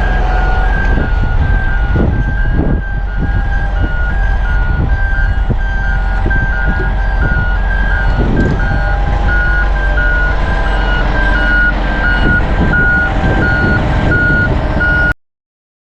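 Peterson 4710D track-mounted grinder moving under its diesel engine, its travel alarm sounding rapid, alternating two-pitch beeps over the steady engine drone. The sound cuts off suddenly near the end.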